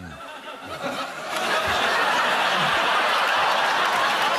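Studio audience laughing, swelling about a second in to loud, sustained crowd laughter.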